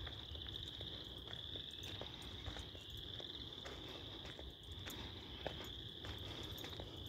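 Faint chorus of frogs calling without a break in one high, steady band, with scattered light crunches of footsteps on gravel.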